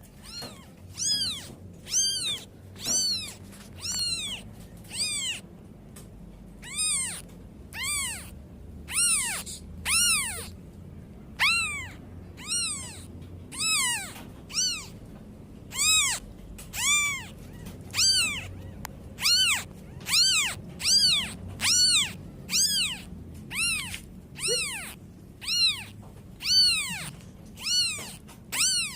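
Kitten mewing repeatedly, high-pitched calls about once a second, each rising then falling in pitch: a kitten calling for its mother.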